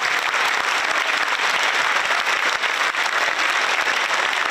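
Large audience applauding steadily in a big hall, many hands clapping at once.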